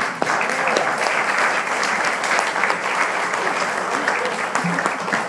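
Church congregation applauding, dense steady clapping that breaks out just as the song's last guitar chord ends.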